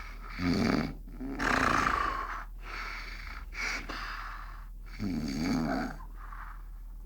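A person snoring: two low snores, one about half a second in and another about five seconds in, with breathy, hissing breaths in between.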